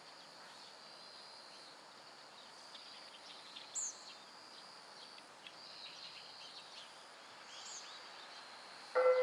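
Faint outdoor morning ambience: a steady thin high-pitched tone and a few short bird chirps, the clearest about four seconds in and again near eight seconds. Right at the end, the first notes of a municipal disaster-prevention radio chime start from an outdoor loudspeaker.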